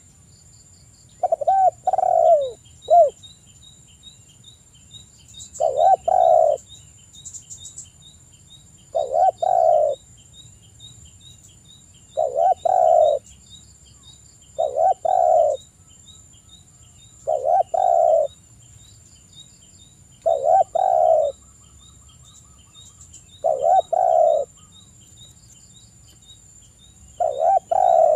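Spotted dove (tekukur) cooing: short, repeated two-part coo phrases, about one every three seconds.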